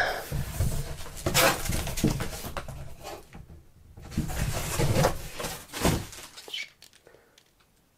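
Cardboard record mailer being handled and an LP sleeve slid out of it: card scraping and rustling against card in two spells, dying away near the end.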